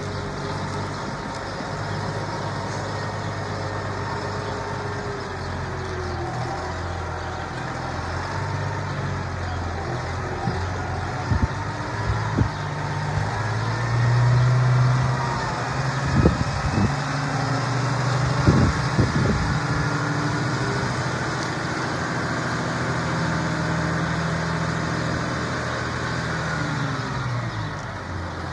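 New Holland T7.290 tractor's six-cylinder diesel engine running as the tractor drives at low speed, the engine note rising and falling and swelling about halfway through. A few short knocks sound over it in the middle.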